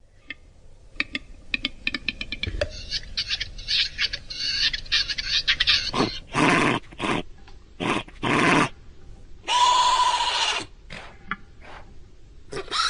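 Designed Utahraptor call sound effect, built from animal sounds: a quick run of clicks, then hissing, then several loud, rough growling hisses and one long hiss, with short clicks near the end.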